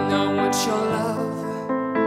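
A teenage girl singing into a microphone over piano accompaniment, holding long notes.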